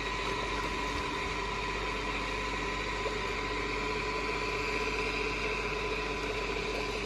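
Steady mechanical hum with several constant tones, like a motor running without change.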